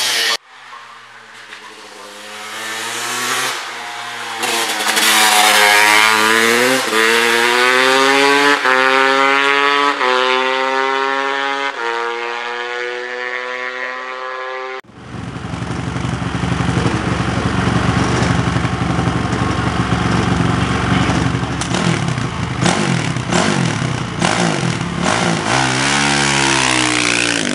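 Single-cylinder 500cc hill-climb motorcycles. One accelerates hard through the gears, its engine note rising and dropping back at each of several upshifts. After a sudden cut, another is held at high revs on the start line and launches near the end with a rising note.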